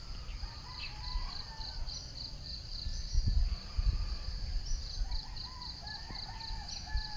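Insects chirping in a steady, high-pitched pulsing chorus, with a bird calling a few short notes, mostly in the second half, over a low rumble that swells about three seconds in.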